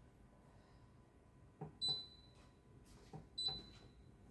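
Buttons pressed on a fuel injector test bench's control panel while entering the injection time: two pairs of short clicks, the second click of each pair with a short high beep.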